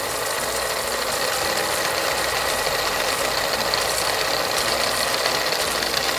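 Quiz countdown sound effect: a steady, rapid mechanical rattle.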